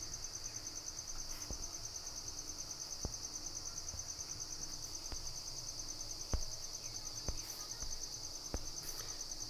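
Crickets trilling steadily in the background, a continuous high pulsing chirr, with a few faint clicks scattered through.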